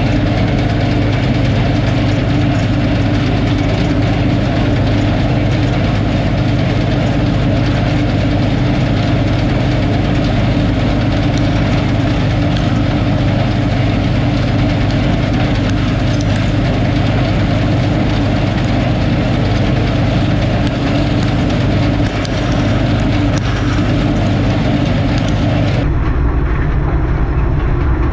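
Combine harvester running steadily while harvesting wheat: an engine hum under a continuous machinery rumble. A couple of seconds before the end the sound changes abruptly to a duller, lower-pitched mix.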